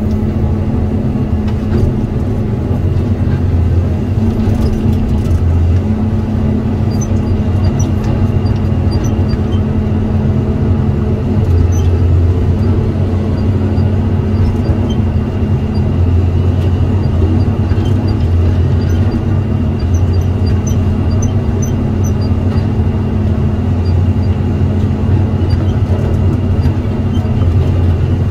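Diesel engine of a Tigercat 234 knuckleboom log loader running steadily at working speed, a constant low hum.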